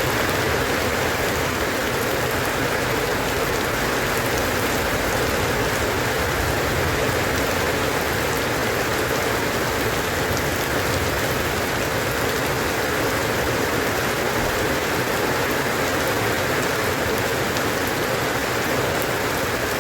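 Steady rain falling, a dense, even patter with no thunder.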